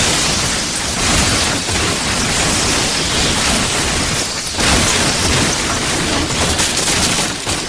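Anime lightning-technique sound effect (Chidori Nagashi): a loud, dense electric crackling hiss that thins into scattered crackles near the end.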